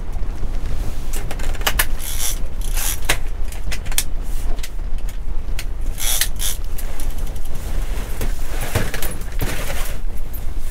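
Irregular mechanical creaking and clicking over a steady low rumble, with short sharp scrapes scattered through and a longer, denser stretch near the end.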